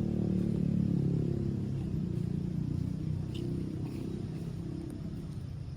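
A vehicle engine running with a low rumble that slowly fades.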